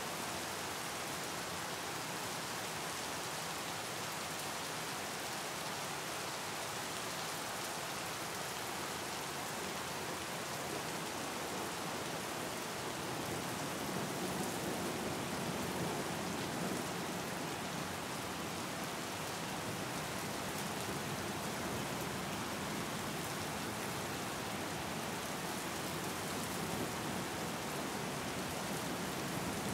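Steady rain falling on open water, many drops splashing on the surface, a little louder about halfway through.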